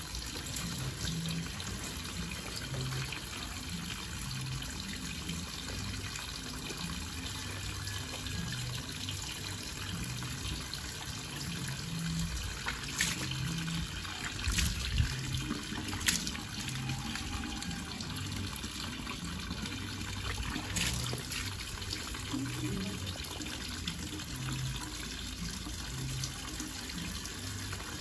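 Water running steadily, as from an open tap, with a few short knocks near the middle.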